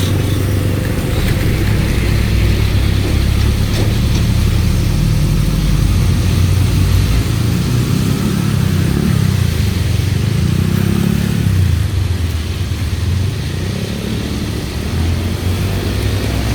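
Deep engine rumble of motor vehicles running, with the pitch rising and falling a couple of times around the middle.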